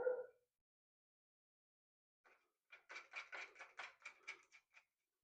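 Kip handle being screwed onto the jig's threaded post: a quick run of light clicks, about six a second, lasting two seconds from about halfway in.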